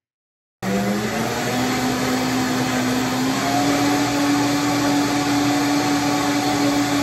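Countertop blender switched on about half a second in. Its motor runs loud and steady, its whine stepping up in pitch twice over the first few seconds as the speed is raised, then holding.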